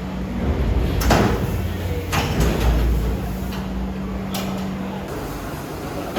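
Workshop machinery running with a steady low hum and rumble. Three sharp knocks or clanks come about one, two and four and a half seconds in, and the hum stops near the end.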